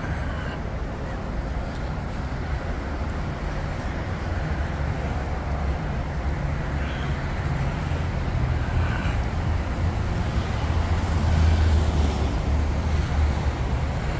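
Steady low rumble of distant road traffic, swelling slightly about ten to twelve seconds in.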